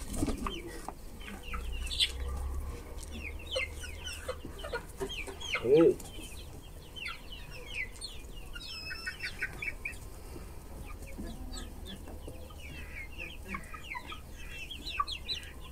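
A flock of young chickens clucking and peeping, with many short, high calls throughout. One louder, lower call stands out about six seconds in.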